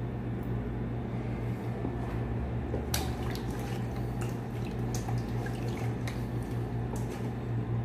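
Raw chicken pieces squeezed and turned by hand in a steel bowl of marinade, with wet squelches and drips of liquid. A sharp click about three seconds in, over a steady low hum.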